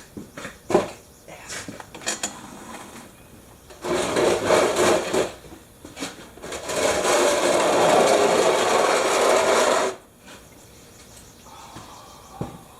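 Hand-tool work on an ATV: a few sharp clicks and knocks, then two stretches of rasping, scraping noise, one short and one about three seconds long, that stop abruptly.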